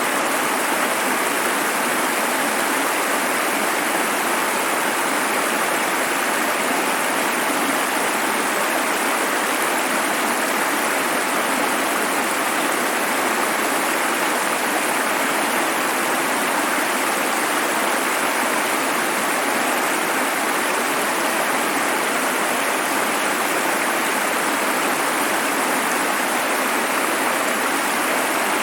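Running water: a steady, unbroken rushing flow that holds the same level throughout.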